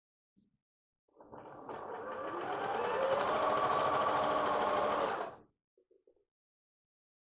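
Computerized sewing machine stitching: it starts about a second in, speeds up over the next second or two, runs steadily and stops shortly after five seconds. A few faint clicks follow.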